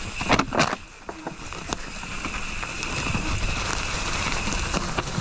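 Mountain bike rolling over a dirt trail, filmed from the bike: a steady rumble of tyres and frame rattle, with a few sharp knocks about half a second in.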